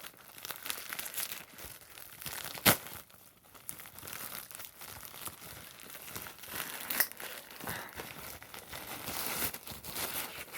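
Shipping packaging being torn open and crinkled by hand, a continuous rustle with a sharp, loud snap about two and a half seconds in and a softer one about seven seconds in.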